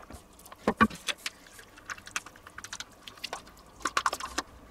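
A spoon scraping crème fraîche out of a plastic tub and tapping it off into a pot of stew: scattered light clicks and knocks, the loudest a pair about a second in and a quick cluster near the end.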